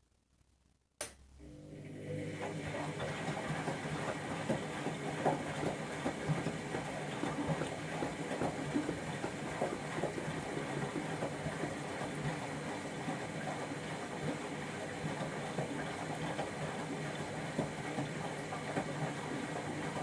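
Candy Grand'O Vita washing machine on a boil wash: a sharp click about a second in, then the drum turning through the water with the motor humming steadily and water sloshing.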